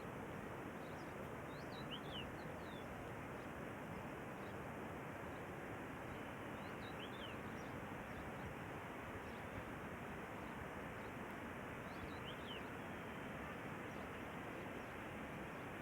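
Steady rushing outdoor background noise with a few short, high bird chirps scattered through it.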